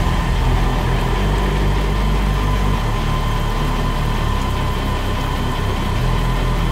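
Vertical milling machine running steadily as its spindle drives a drill bit down through steel bracket plate: a constant low motor hum with a thin steady whine over the noise of the cut.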